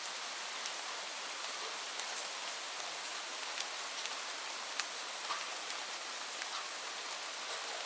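Steady rain falling on leaves: an even hiss with many distinct drops pattering individually on top.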